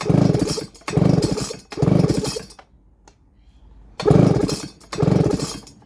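Baumr-AG SX92 two-stroke chainsaw being pull-started: the recoil starter cord yanked about once a second, three pulls, a short pause, then two more, the engine cranking over without catching.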